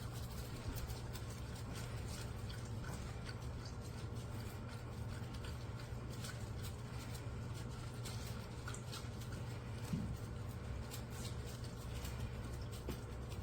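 A pet lapping water at a water fountain: quick, irregular wet clicks over a low steady hum.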